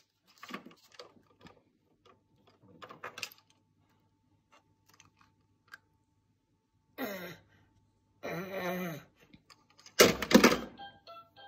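A toddler handling a ring of plastic toy keys and an electronic toy farmhouse: scattered light plastic clicks and rattles, two short pitched sounds in the second half, and the loudest sound, a short burst, about ten seconds in, as the toy is pressed.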